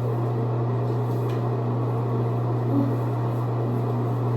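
Steady low hum with an even hiss over it, unchanging throughout, with one soft brief bump about three seconds in.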